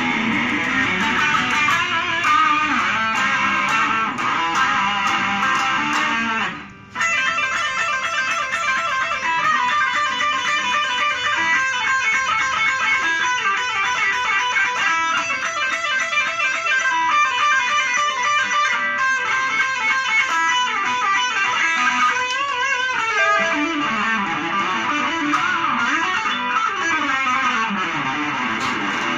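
Solo electric guitar played through a multi-effects pedal and a small amplifier: a fast lead line of many quick notes, with sliding, bending pitches in the last few seconds. It stops for a moment about seven seconds in.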